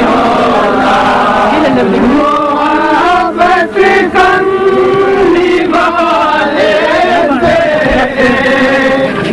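A group of men's voices chanting together, loud and continuous, with the pitch rising and falling in a sung line.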